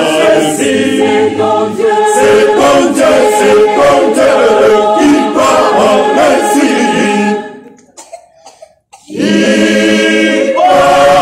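Mixed choir singing a cappella. The voices fade out about two thirds of the way in for a short pause, then come back in with a full held chord.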